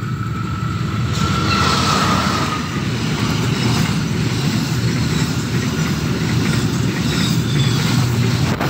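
Diesel-hauled freight train of flat wagons passing close by, its wheels rumbling and clattering over the rails. A thin high whine sounds over the rumble during the first few seconds, and the noise grows louder about a second in as the locomotive draws level.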